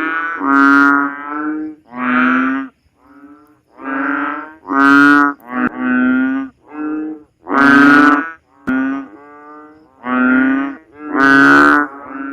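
Banded bullfrogs (Asian painted frogs) calling: a run of loud, nasal, lowing calls, each about half a second long, one after another about once a second, some overlapping as more than one frog calls.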